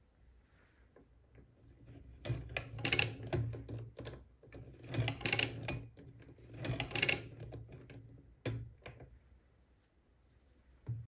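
Odhner Model 8 pin-wheel calculator's hand crank turned three full times in the plus direction, each turn a rattling run of gear clicks lasting about a second, each turn adding 123 into the result register. A single sharp click follows about a second after the third turn.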